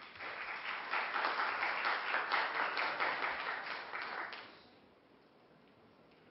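An audience applauding, stopping about four and a half seconds in.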